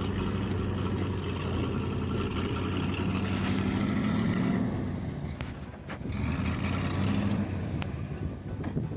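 Heavy truck engine running steadily with a low hum, briefly dropping in level a little past the middle and again near the end.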